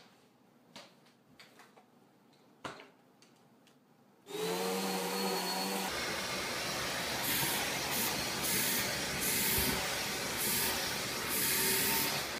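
Near quiet with a few soft clicks. About four seconds in, a vacuum cleaner switches on, its motor whine rising as it spins up. Then comes the steady rush of a vacuum hose nozzle sucking over a cat's fur, the hiss swelling and dropping again and again as the nozzle moves.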